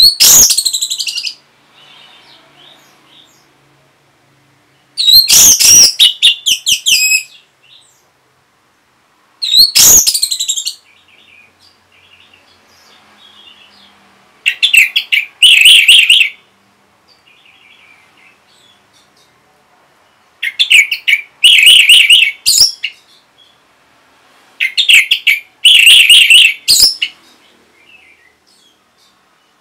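Orange-headed thrush singing in six short, loud phrases of about one to two seconds each, with pauses of a few seconds between them.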